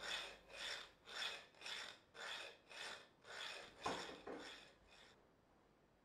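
A metal file rasping back and forth on an iron wrist shackle, about two strokes a second, with a sharper knock near the four-second mark; the strokes stop about five seconds in.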